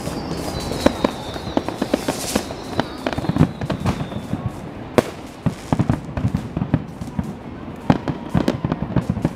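Fireworks display: a dense, irregular run of bangs and crackles from shells bursting in the sky, with one sharp loud bang about five seconds in. A high whistle falls slowly in pitch over the first few seconds.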